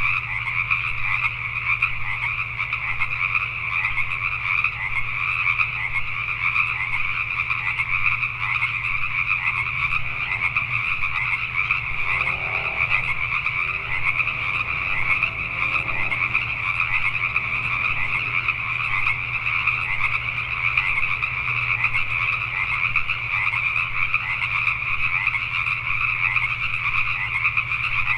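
Dense chorus of many Pacific tree frogs calling over one another without a break, with a low steady hum underneath.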